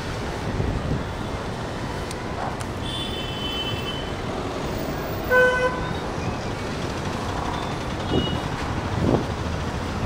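Wind rushing over the microphone and city traffic heard from a moving motorcycle. A vehicle horn honks once, briefly, about five seconds in; it is the loudest sound. A shorter, higher-pitched horn sounds around three seconds in, and there are two brief louder swells of traffic noise near the end.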